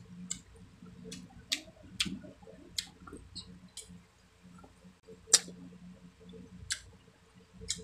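Close-miked wet chewing and mouth smacks of someone eating grilled fish and rice by hand: scattered sharp clicks, about nine of them, the loudest about five seconds in.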